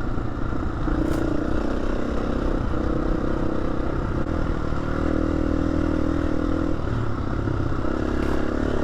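KTM 350 enduro's single-cylinder four-stroke engine running while the bike is ridden, its pitch rising and dipping a little with the throttle, over a low rumble and some clatter.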